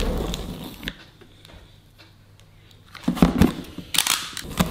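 Utility knife (Stanley knife) blade scraping and slicing along packing tape on a cardboard box, with rustling and knocks of the cardboard. There are a few clicks at the start, a quiet spell, then short, loud, noisy cutting strokes near the end.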